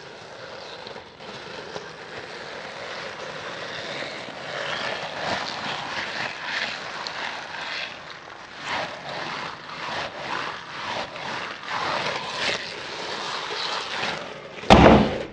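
Rubber-duck squishy stress ball filled with tiny styrofoam beads in jelly, squeezed and stretched by hand: a steady crackly crunching and squishing that rises and falls. There is one louder thump near the end.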